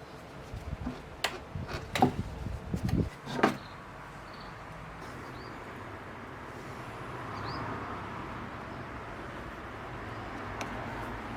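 A few sharp knocks and clicks, then a flood-damaged air-conditioner outdoor unit running with a steady, even mechanical drone. It is the abnormal noise the uploader traces to the fan motor.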